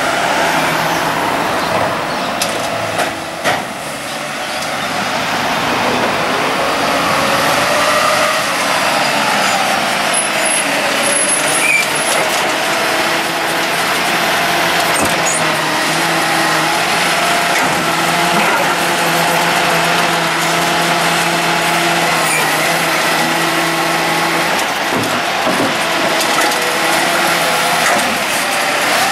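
Volvo side-loading garbage truck running, its hydraulic arm lifting and tipping wheelie bins: a steady engine and hydraulic drone, a few sharp knocks about three seconds in, and a whine that slides in pitch around seven seconds in.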